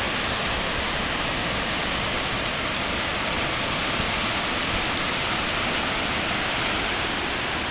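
Ocean surf breaking on a beach: a steady, even rush of waves with no distinct individual breaks.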